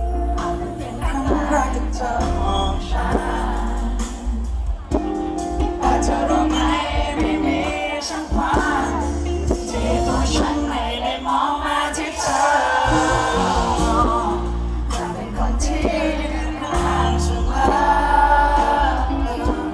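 Male singer performing a Thai pop song live into a microphone over a band backing with a steady, sustained bass line, heard through the concert sound system from within the audience.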